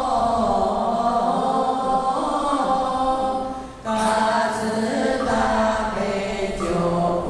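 A group of children chanting a Buddhist verse to Guanyin Bodhisattva in unison, on long held notes. The voices break off briefly just before four seconds in, then start again.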